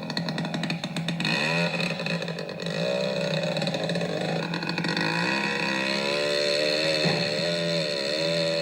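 Two-stroke chainsaw starting with a rapid sputter, then running and revving up and down in repeated surges.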